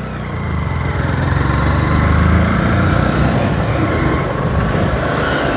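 Motorcycle engines running while riding along a lane, with wind rushing over the microphone. It grows louder over the first two seconds, then holds steady.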